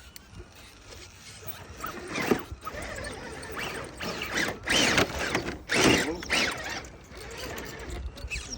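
RC rock crawler's electric motor and gearbox whining in short bursts, rising and falling in pitch as the throttle is blipped over rocks.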